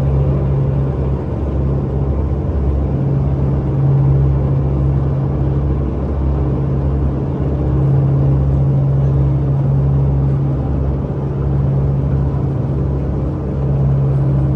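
Sightseeing boat's engine running with a steady low drone, heard from aboard the boat.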